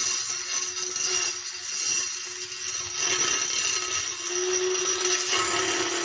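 Small electric motor of a homemade string trimmer spinning its cutter at high speed, a steady hum under a loud hiss that rises and falls as the cutter slashes through weeds and grass.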